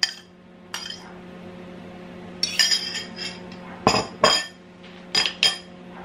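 A metal fork and spoon clink and scrape against mixing bowls as beaten eggs are scraped from a ceramic bowl into a plastic bowl of flour and the cake mixture is stirred. The clinks are separate and sharp, with a cluster about halfway through and a few more near the end, over a faint steady hum.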